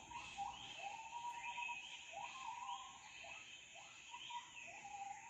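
Played jungle-ambience recording: a series of faint whistled animal calls, each rising and then holding its pitch for about half a second to a second, over a steady high drone.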